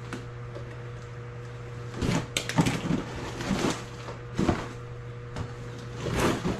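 Handling noise from unpacking strut-kit parts: quiet at first, then from about two seconds in a run of short, irregular knocks, scrapes and rustles of parts and cardboard packaging. A steady low hum runs underneath.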